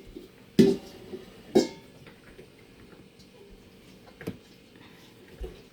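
Kitchen clatter while bread dough is being prepared: sharp, ringing knocks, the two loudest about a second apart near the start, then a couple of fainter ones later.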